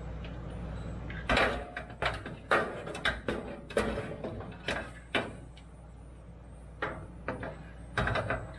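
Cordless impact tool run in a string of short trigger bursts on a bolt under the gas tank of a 1979 Jeep Cherokee, with a pause of about a second and a half before a few more bursts near the end. A steady low hum runs underneath.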